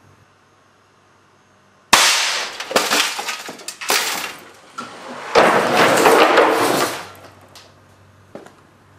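A compressed-air cannon built from a fire extinguisher tank with a solenoid valve fires a glass marble into a metal toaster: a sudden loud blast about two seconds in, with sharp strikes and clattering as the toaster is knocked off its stand. A second long, loud rush of noise follows about five and a half seconds in.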